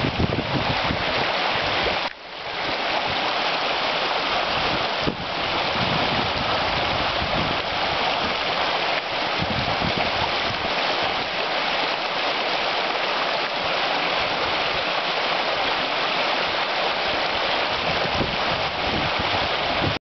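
Shallow, fast-flowing stream rushing and babbling over a stony riffle: a steady, even rush of water that briefly drops in level about two seconds in.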